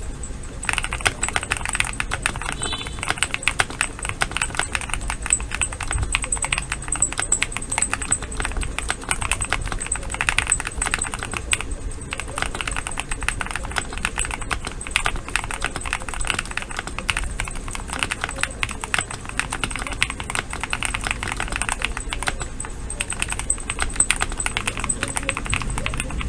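GMK67 mechanical keyboard being typed on continuously, a dense run of key clicks. Its letter keys are fitted with Gateron Queen switches under the stock keycaps.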